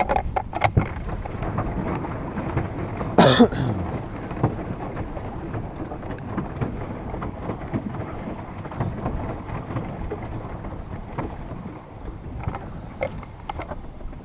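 Water washing against a plastic pedal boat's hull, with wind on the microphone, a steady noisy rush that is strongest in the low end. About three seconds in, a short sound slides down in pitch.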